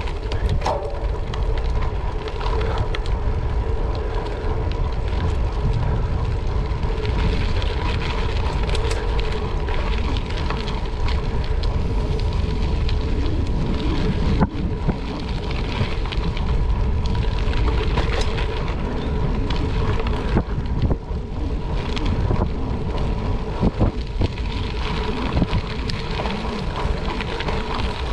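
Gravel bike riding over gravel: tyres crunching and crackling on loose stones, with frequent small knocks from bumps and wind rumbling on the microphone.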